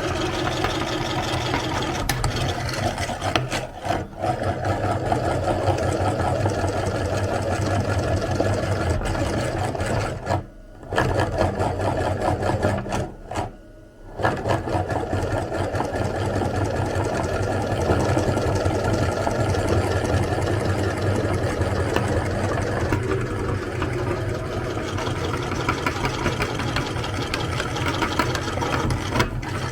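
Electric meat grinder running while grinding soap: a steady motor hum with a rattly grinding texture, briefly dropping out a few times midway.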